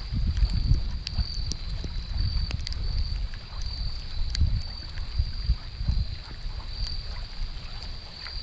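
Wind buffeting the microphone in gusts, a rumble that rises and falls every second or so. A steady high-pitched whine and scattered light ticks sit over it.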